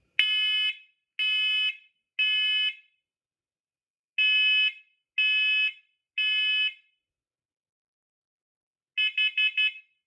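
First Alert SC7010B smoke and carbon monoxide alarm sounding its test, set off by holding the test button: two rounds of three loud beeps, the smoke alarm pattern, then four short quick beeps near the end, the carbon monoxide pattern.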